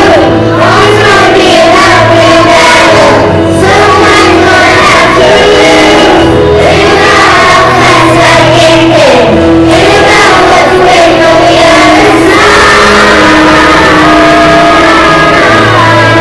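A class of young children singing together in unison over an instrumental accompaniment with held bass notes.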